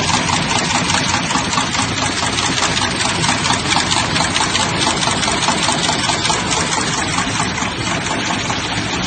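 PCB auto insertion machine running: rapid, even ticking over a steady mechanical hum.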